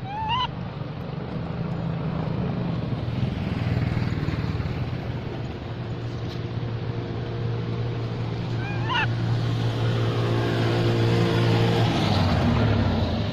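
A motor vehicle engine running with a steady low hum, louder through the middle of the stretch. Two brief high squeaky calls rise and fall, one at the very start and one about nine seconds in.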